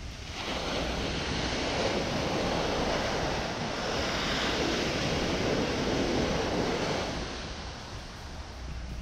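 Ocean surf breaking and washing up a sandy beach, swelling about half a second in and easing off near the end.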